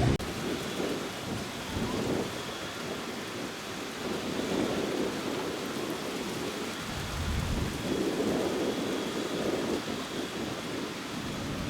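Water gushing from the discharge outlets of the Tsujun Bridge stone aqueduct and falling into the gorge below: a steady rushing of falling water that swells and eases.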